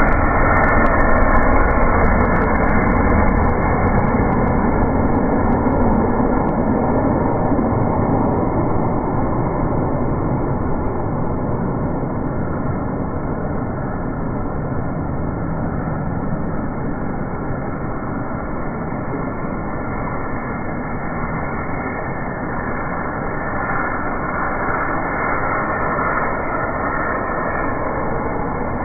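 Heavy rain pouring onto a flooded street, with the runoff streaming and splashing past; a steady rushing noise, a little louder in the first few seconds.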